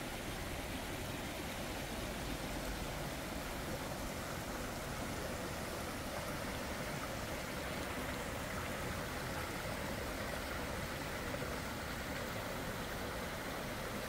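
Small rocky mountain stream running over boulders: a steady rush of water.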